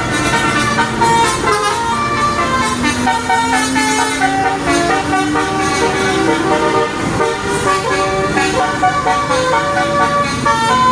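Indonesian bus telolet horns: multi-tone air horns sounding several notes at once and switching between them in quick succession, without a break. A low tone rises slowly about three to four seconds in.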